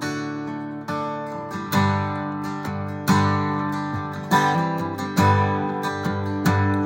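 Acoustic guitar strummed and picked in an instrumental passage between verses, chords struck roughly once a second and left ringing.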